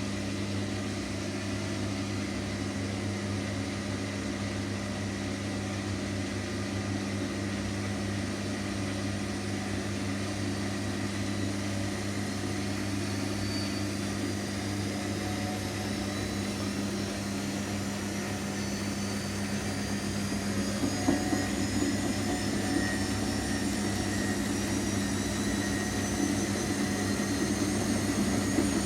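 Washing machine spinning: a steady motor hum with a whine that climbs slowly in pitch as the drum speeds up. About two-thirds of the way through, an uneven rattling joins in.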